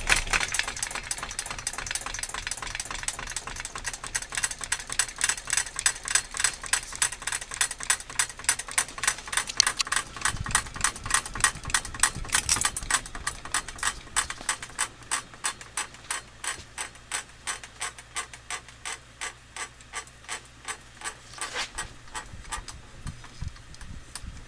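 Wobbling ceiling fan clicking and knocking in an even rhythm, about three knocks a second, once per turn of the blades as the unbalanced fan rocks on its mount, with the light fixture's glass globe rattling loose.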